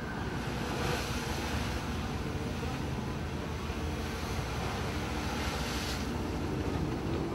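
Storm wind and heavy seas heard from inside a boat's wheelhouse: a steady rushing noise over a low engine drone, swelling louder about a second in and again about six seconds in.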